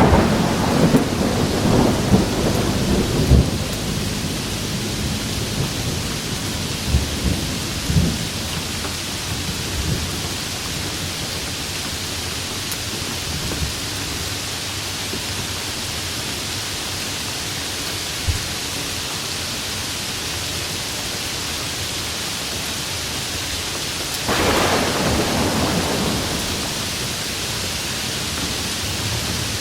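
Steady heavy rain with thunder. A loud rumble with sharp cracks comes at the start, and another roll of thunder swells about three-quarters of the way through.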